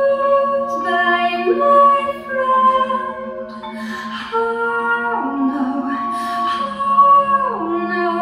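Live music: a woman singing slow, long held notes that slide smoothly from one pitch to the next, over a steady low note held underneath.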